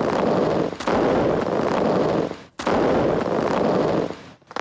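A barrage of daytime firework cakes firing their tubes of coloured powder, hundreds of small blasts merging into one dense crackling din. It comes in three long stretches, with a short dip about a second in and a sudden gap about halfway, and stops just before the end.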